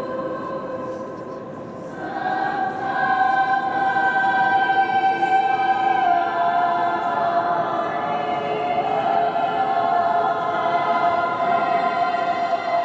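Girls' choir singing long held notes in several parts, the voices swelling louder about two seconds in.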